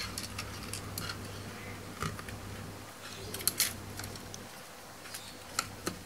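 Scattered light clicks and taps of a hard-drive caddy being handled and pressed into a laptop's optical-drive bay, with a few sharper clicks about two seconds in, in the middle and near the end.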